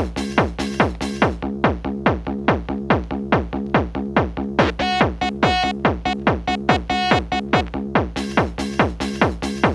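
Electronic dance music in the Valencian 'sonido de Valencia' style, driven by a fast, steady kick drum on every beat. About a second in the hi-hats drop out; a synth line with a repeated high note comes in around five seconds, and the full beat returns near eight seconds.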